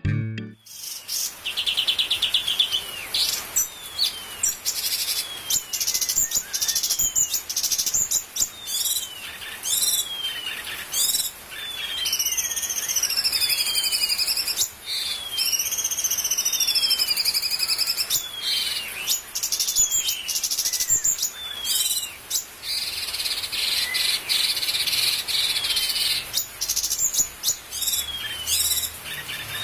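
Cucak cungkok songbird singing: a busy song of short, repeated downward-sliding whistles, with wavering warbled phrases about halfway through and a buzzy trill near the start and again later.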